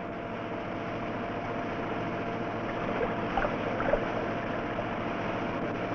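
Grout pump running for post-tensioning duct grouting: a steady mechanical hiss and hum, with a few faint knocks around the middle.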